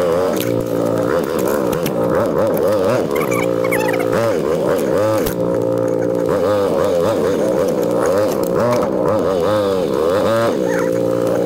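ATV engine running, its pitch rising and falling again and again as the throttle is opened and eased on a rough trail.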